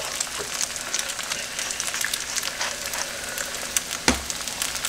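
Eggs, hash browns and bacon sizzling on an electric nonstick griddle: a steady frying hiss full of small crackles and pops. A single thump about four seconds in.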